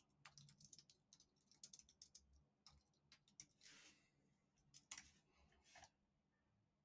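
Faint keystrokes on a computer keyboard as a search query is typed: a quick run of clicks in the first two seconds, then a few scattered keystrokes, one a little louder about five seconds in.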